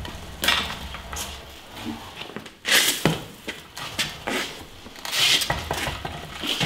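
Metal clinking, rattling and scraping as a hydraulic power unit on its wheeled cart is moved across a concrete floor. There are several sharper clanks, the loudest about three seconds in and again past five seconds.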